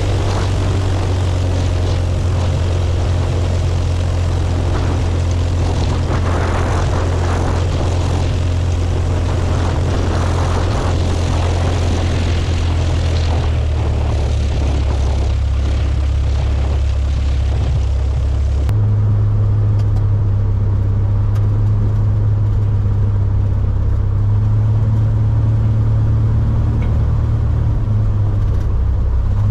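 Single-engine light aircraft's piston engine and propeller running at low power on the ground: a steady low drone, with hiss over it, that shifts in pitch partway through. About two-thirds of the way through the hiss drops away and the drone sounds duller, as heard from inside the cockpit.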